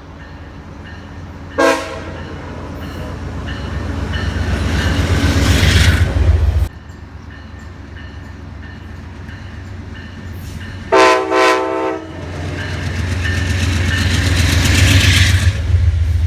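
Locomotive horn sounding a short blast, then the rumble of a train drawing near and growing louder until the sound cuts off abruptly. A second horn blast of about a second, loudest in two parts, follows, and then another train's rumble builds up.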